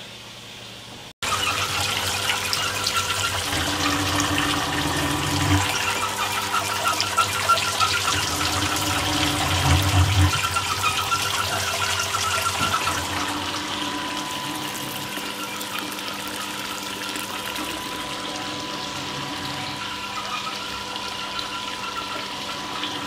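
Sparge arm spraying hot water into a brewery mash tun: a steady rush and splash of water onto the mash, with a steady machine hum beneath. It starts abruptly about a second in and is loudest in the first half. This is the sparge, rinsing the last sugars out of the grain.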